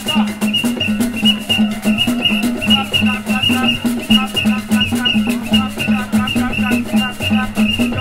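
Ben Skin dance music: hand-held rattles shaken in a steady beat about three times a second, over hand drums and a chorus of singing voices.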